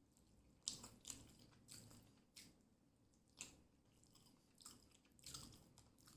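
Close-miked chewing and biting of food: a person eating fish fry and rice, with short, wet, irregular mouth clicks and smacks, about one or two a second.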